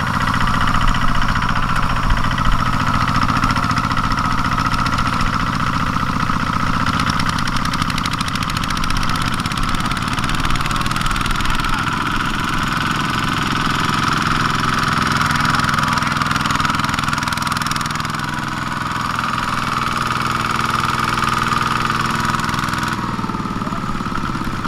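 Kubota horizontal single-cylinder diesel on a two-wheel walking tractor, running steadily with a fast, even firing beat as it pulls a loaded rice trailer across the field. The engine note changes slightly near the end.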